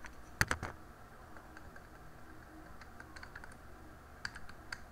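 Computer mouse and keyboard clicks: a couple of sharp clicks about half a second in, then scattered lighter key taps, a few more near the end.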